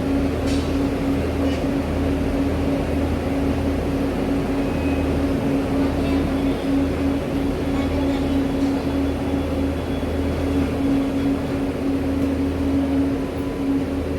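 Passenger train running along the track: a steady rumble of wheels on rail with a constant hum underneath.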